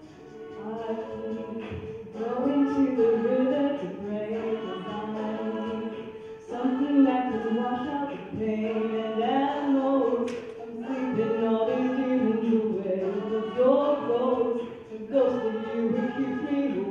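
A cappella vocal group singing in harmony, with one voice part holding a steady note beneath moving melody lines.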